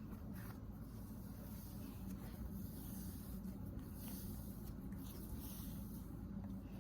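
Cloud slime being stretched and squished by hand, giving faint, soft crackling.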